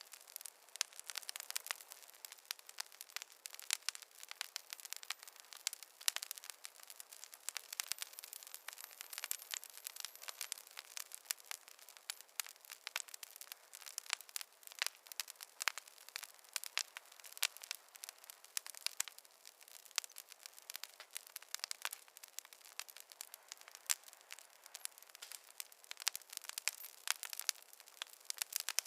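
Wood fire crackling: a dense, irregular stream of sharp pops and snaps over a faint hiss, with no low rumble.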